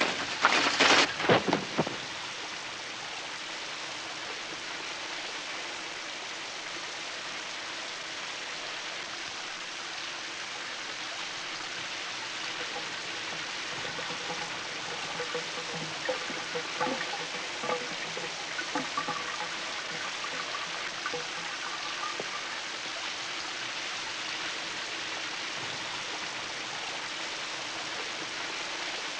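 A quick run of loud sharp snaps at the start, as plastic shower-curtain rings tear off the rod, then a shower running steadily, its water spattering, with faint gurgles partway through.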